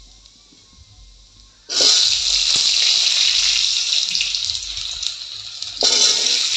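Hot oil in a kadai sizzling loudly as washed, peeled taro corms are tipped in. It is quiet for the first couple of seconds, then the sizzle starts suddenly, eases a little, and surges again near the end as the rest of the pieces go in.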